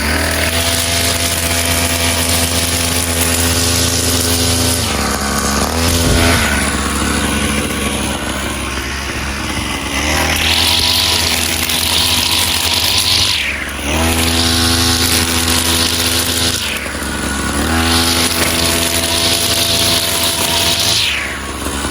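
Two-stroke engine of a brush cutter with a 45 mm bore running hard at high throttle, cutting grass. In the second half the engine note sags and recovers three times, about every three to four seconds, as the cutting load comes and goes.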